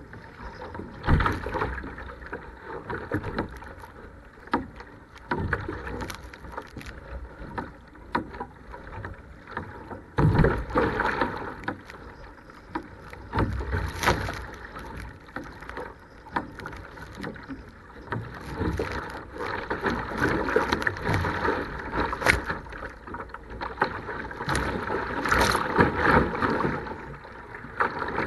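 Water rushing and splashing around a sea kayak paddled through rough, choppy sea, with waves slapping the hull and spray breaking over the deck in irregular loud surges.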